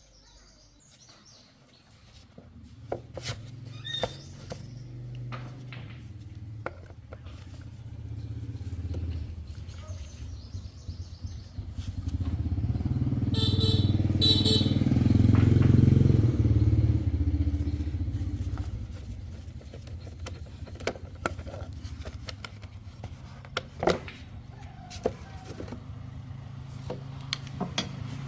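Motorcycle engine running, coming in about two seconds in and rising in a rev around the middle before settling back to a lower run, with scattered sharp clicks and taps.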